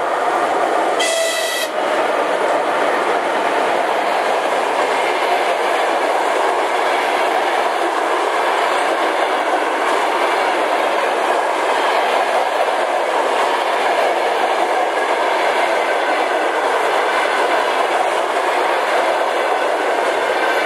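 Coaches of a passenger train hauled by a ChS7 electric locomotive rolling past, a loud steady rumble with the clickety-clack of wheels over rail joints. About a second in, the locomotive gives a short, high-pitched whistle blast.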